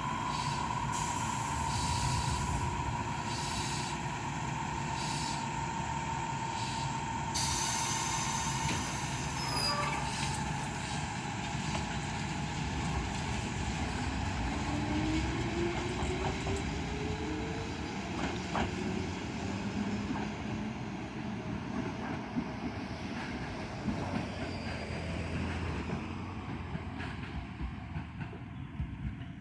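Toyama Chiho Railway 10030-series electric train pulling out. There is a steady high tone for the first several seconds, then a burst of air hiss about seven seconds in. After that the motor whine rises in pitch as the train gathers speed, over the steady rumble of its wheels on the rails.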